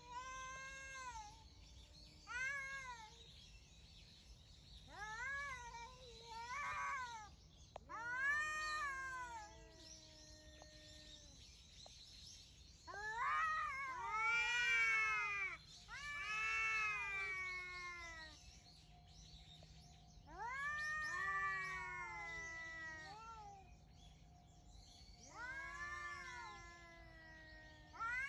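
Two cats yowling back and forth: about ten long, wavering calls, each rising then falling in pitch, the later ones drawn out to two seconds or more, with short pauses between.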